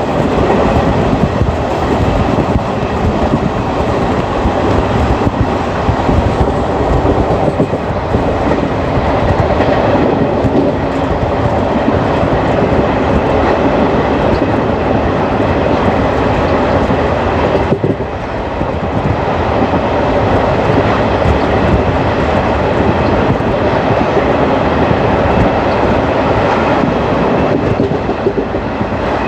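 Indian Railways ICF passenger coach running at speed: a steady, loud rumble and clatter of its wheels on the track, with a brief dip in level about two-thirds of the way through.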